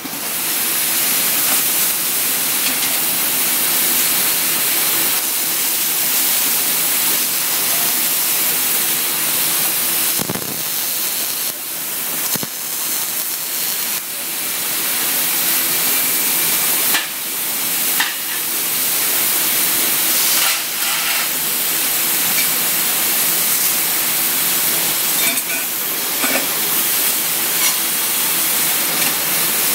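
MIG welding arc on 16-gauge steel tubing, a continuous frying hiss in long runs with a few brief breaks, over a steady low hum.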